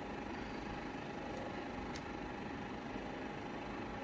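Steady room noise without speech: an even hiss with a faint constant whine, and one faint click about two seconds in.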